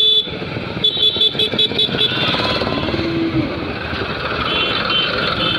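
Street traffic heard from a moving motorcycle: a steady engine and road rumble, with a high-pitched vehicle horn beeping in rapid series, once at the very start and again about a second in.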